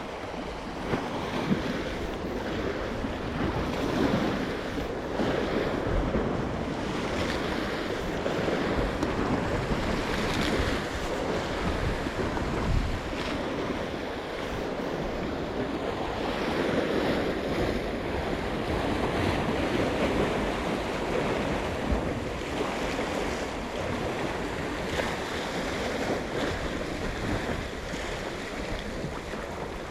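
Sea waves washing against a rocky shore, swelling and easing, with wind rumbling on the microphone.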